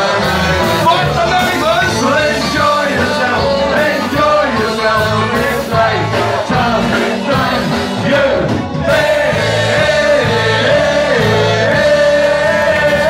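Live ska band playing loudly with a singer over a steady beat; about nine seconds in the music breaks off for a moment, then a long held note rings on.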